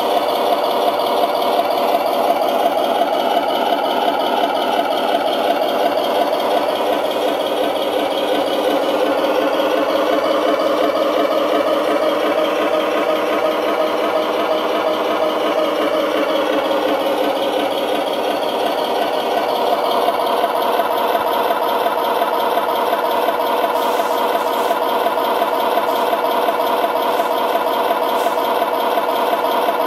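RC model tanks' built-in sound units playing a simulated tank engine idle through small speakers: a continuous, fast-pulsing engine sound that shifts slightly in pitch around the middle.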